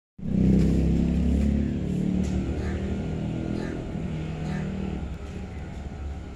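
A motor vehicle's engine running, loudest at the start and easing off slowly over the few seconds.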